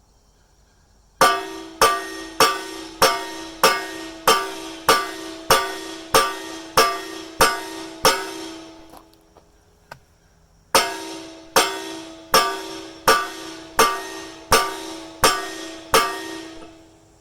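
Heavy hammer blows on steel, each ringing out with a bell-like tone: a steady run of about a dozen blows, a pause of about two seconds, then about eight more. This is typical of driving out or setting the retaining pins when changing excavator bucket teeth.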